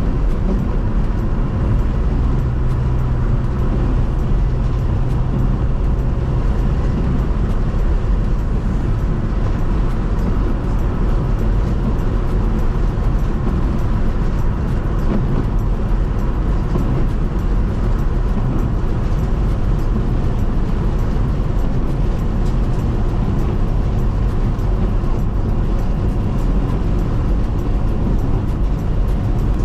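Steady road and engine noise heard from inside a car driving on a snowy highway, with many fine ticks of snow and ice hitting the vehicle, more frequent from about ten seconds in.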